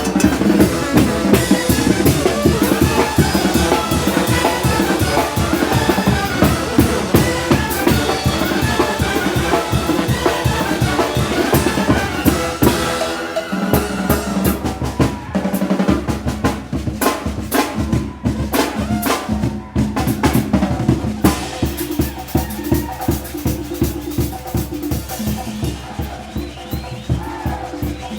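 Oaxacan brass band (banda) playing a fast muertero and calendero dance rhythm: brass melody over snare, bass drum and cymbals. About halfway through, the music drops briefly, then the drums carry on mostly on their own.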